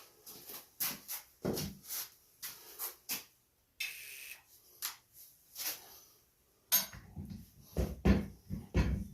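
A run of clinks and knocks of tools and metal parts being handled while a garden tiller is taken apart, with a brief steady hiss about four seconds in and heavier, duller thuds over the last couple of seconds.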